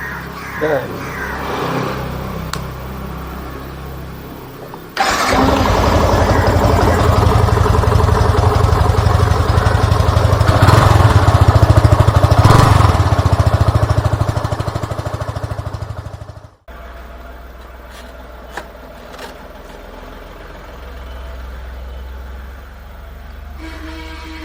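Yamaha FZ V2.0's single-cylinder engine starting on its newly fitted battery. It fires about five seconds in, runs with a rise in revs near the middle, and cuts off suddenly.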